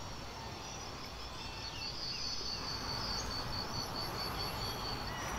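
Insects chirping: a high, pulsing trill that goes on steadily over a faint background hiss.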